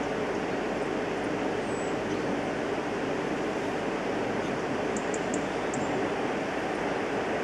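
Steady rush of flowing river water, with a few faint, short high ticks about two-thirds of the way through.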